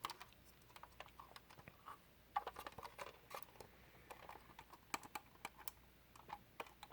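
Faint, irregular clicks and taps of a 1:18 scale diecast model car being handled and turned over in the hands.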